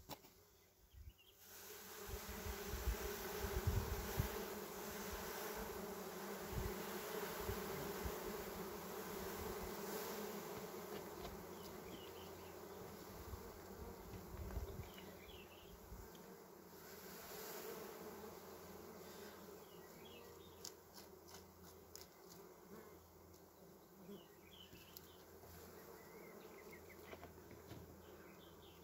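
A swarm of honeybees buzzing steadily as they fly up off their disturbed comb. The buzz starts about a second and a half in, with low thumps and rumble under it for the first few seconds.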